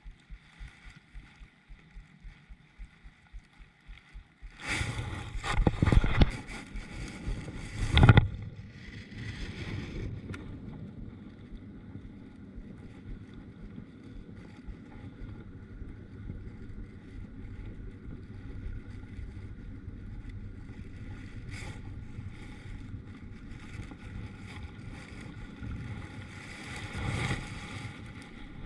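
Kayak on open water: water sloshing at the hull with wind on the microphone. Soft regular thumps, about three a second, run through the first few seconds, then a loud stretch of knocking and rustling a few seconds in before the sound settles to a steady wash.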